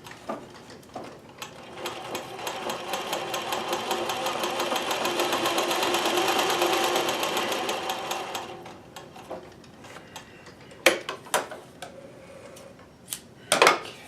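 Consew sewing machine stitching a line through a felt scrap: a rapid, steady run of needle strokes that builds up, then slows and stops after about seven seconds. This is a test seam to check the thread tension. A few sharp clicks and knocks follow near the end.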